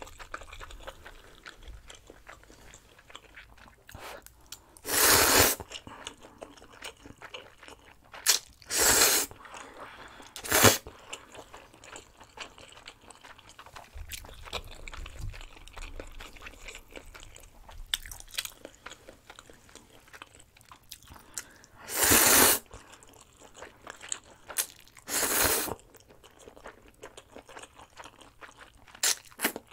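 A person eating spicy stir-fried instant noodles close to the microphone: about five loud slurps of noodles, each under a second, with quieter chewing and small mouth sounds between them.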